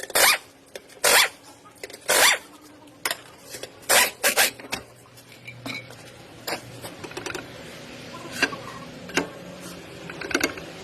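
Noise from a car's rear wheel: a short rasping scrape repeated about once a second, then more irregularly and closer together about four seconds in.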